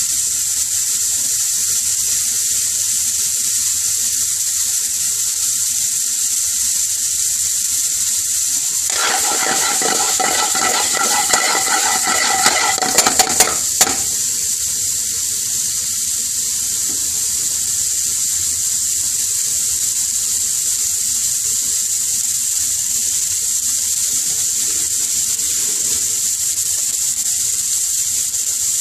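Vegetables sizzling steadily as they fry in an aluminium pan. From about nine seconds in, for some five seconds, a metal spoon stirs and scrapes the pan, with a few sharp clicks near the end of the stirring.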